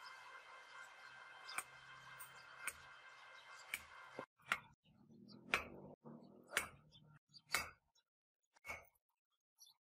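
Faint sharp ticks about once a second, at first over a steady hiss that cuts off abruptly about four seconds in.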